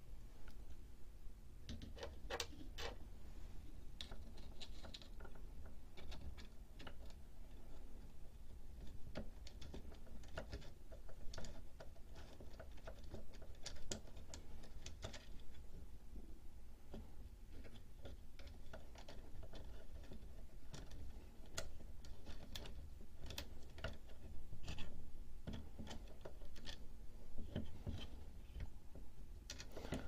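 Faint, irregular small clicks and ticks as a V-wheel's screw, washer and eccentric nut are worked into place on a 3D printer's hot-end carriage, by hand and with needle-nose pliers.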